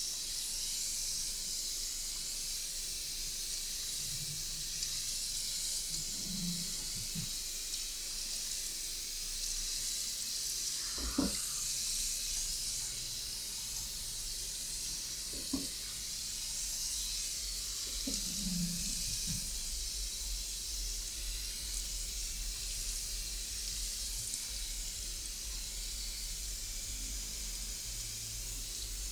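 Water running steadily from a basin shower head during a hair wash, an even hiss, with a couple of brief knocks about eleven and fifteen seconds in.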